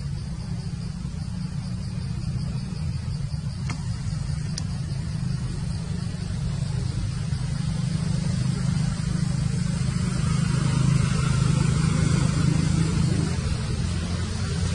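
Steady low rumble that grows louder about ten seconds in, with two faint clicks about four seconds in.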